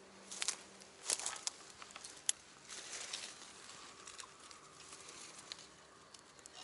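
Footsteps and rustling as someone pushes through dense, low leafy weeds, with several sharp clicks scattered through; the loudest click comes a little over two seconds in.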